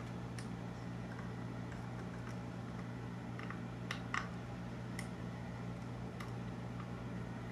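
Scattered small clicks and ticks of a precision screwdriver and tiny Torx screws being handled and driven into the end plate of an Xduoo XD-05 portable DAC/amp housing. The loudest clicks come about four seconds in.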